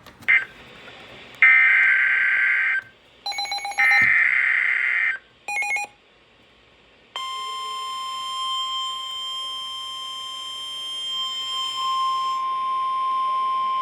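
Weather-radio alert tones. First come several short, harsh buzzing bursts of coded SAME header data. About seven seconds in, the steady 1050 Hz NOAA Weather Radio warning alarm tone starts, the signal that a warning (here a severe thunderstorm warning) follows.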